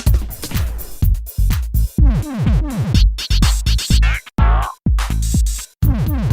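Electronic music with a drum-machine beat: heavy low thumps about twice a second, each trailed by falling pitch sweeps, with a few sudden short drop-outs midway.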